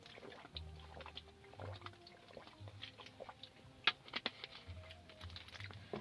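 Drinking from a plastic water bottle: faint swallowing and small crackles of the thin plastic, with one sharper click about four seconds in as the cap is handled. Faint background music runs underneath.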